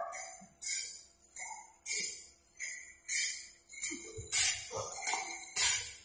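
Background music with a jingling, tambourine-like beat a little under twice a second and short melody notes between; it grows fuller about four seconds in.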